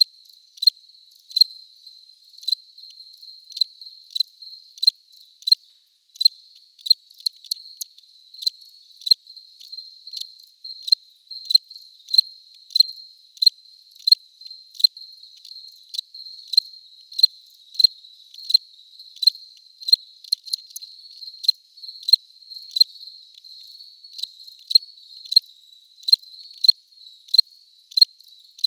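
Cricket chirping: a high-pitched chirp repeated evenly about one and a half times a second, over a steady, fainter trill at the same pitch.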